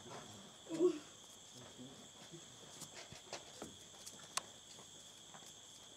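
Steady high-pitched chorus of rainforest insects droning without a break. A short low vocal sound comes about a second in, and a single sharp click about four and a half seconds in.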